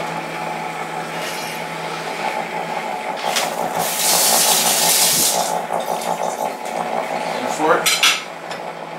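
Ronco Showtime rotisserie oven running with a steady hum. About four seconds in, a hiss like a running tap lasts about a second and a half.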